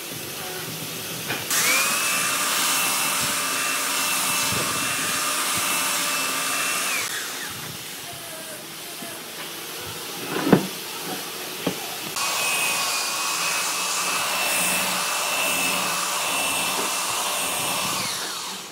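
Electric power tool motor run twice, each time for about five or six seconds: it starts up sharply into a steady whine, then winds down with a falling whine. A single sharp knock comes between the two runs.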